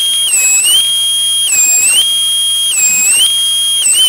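Benchtop thickness planer running with a loud, high-pitched whine that dips in pitch about every second as the maple board is fed through and loads the cutterhead, then recovers.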